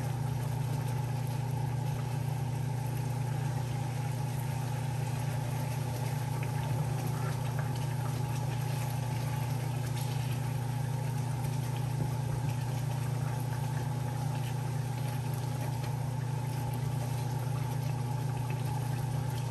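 Tuna steaks in coconut sauce simmering in a frying pan, under a steady low hum.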